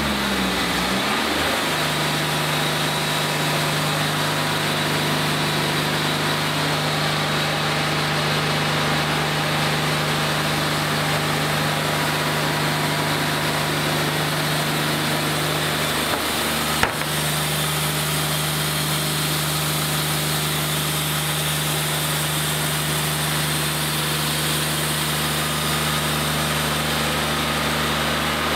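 Wood-Mizer LT40 hydraulic band sawmill running steadily, its band blade sawing a board off a green pine cant. A single sharp click about two-thirds of the way through.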